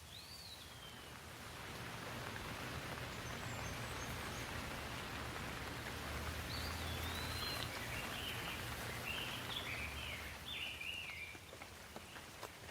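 Rain falling steadily, growing heavier about two seconds in and easing off near the end, with a bird chirping at the start and in repeated short calls through the second half.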